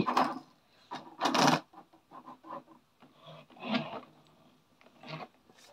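Small N gauge model steam locomotive and wagons running slowly and roughly on the track. It gives irregular scraping and rubbing noises in short bursts, the loudest about a second in.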